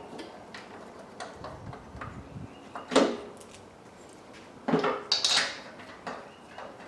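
Metal water-pump parts and bolts being handled during reassembly: scattered clinks and knocks, the sharpest about three seconds in and a short cluster around five seconds.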